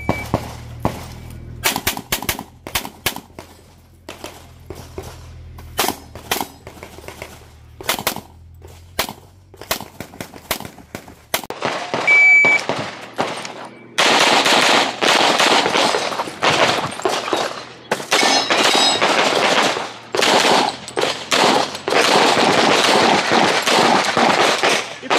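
Handgun shots during an IPSC practical shooting stage. Scattered shots run through the first half. About halfway through, a short electronic shot-timer beep sounds, followed by fast strings of pistol fire with brief pauses between the strings.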